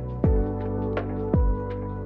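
Background music: a mellow electronic track with sustained chords and light ticking percussion, punctuated by two deep kick-drum beats that drop in pitch.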